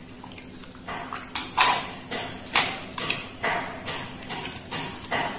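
A spoon stirring a watery stew of chopped vegetables and chicken in an aluminium pressure cooker, knocking and scraping against the pot about two to three times a second.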